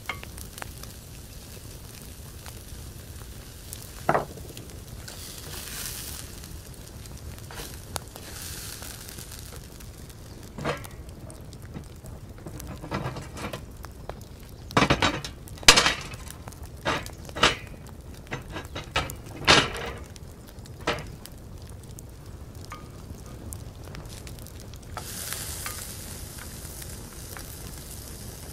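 Diced pancetta sizzling and frying in a cast iron pan, stirred with a wooden spatula. Through the middle come a series of sharp metal clanks and knocks as the cast iron grill's lid and grate are handled over the charcoal. The sizzle grows louder again near the end.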